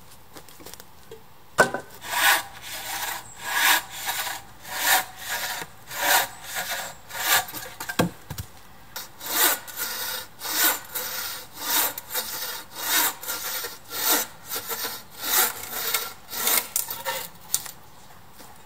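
Bow saw cutting through a wooden log: a steady run of rasping back-and-forth strokes, a little under two a second, after a sharp knock about a second and a half in, with a dull thud midway.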